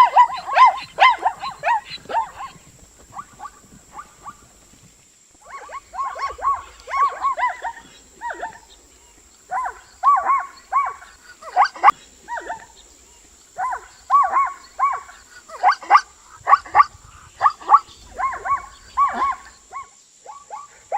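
An animal calling in quick runs of short, pitched calls, several a second, with brief pauses between the runs.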